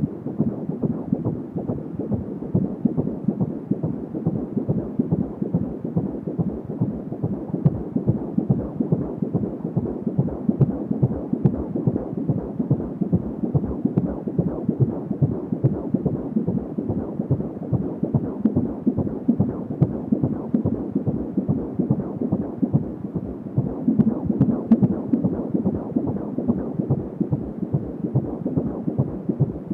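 A 16-week fetus's heartbeat picked up by a fetal Doppler: a fast, even pulse that keeps up without a break.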